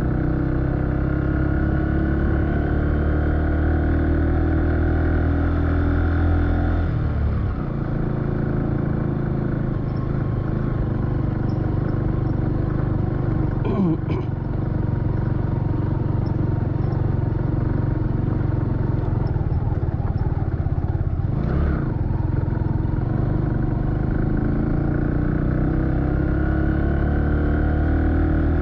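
A motor vehicle's engine running steadily, its pitch dipping and picking up again twice, about seven and about twenty-one seconds in. A brief sliding tone comes about halfway through.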